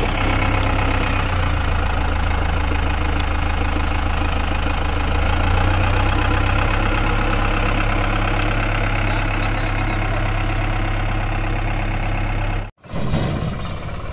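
JCB 3DX backhoe loader's diesel engine running steadily. A sudden cut near the end switches to another diesel engine running, a Swaraj farm tractor's.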